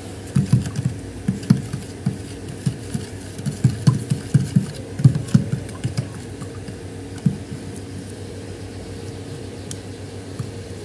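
Irregular soft knocks of baking soda being stirred into water in a small plastic tub, stopping about seven seconds in, over a steady low hum.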